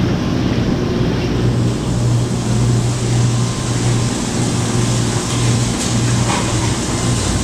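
Steady low hum of refrigerated display cases under the general background noise of a busy grocery store, with a few faint clicks about six seconds in.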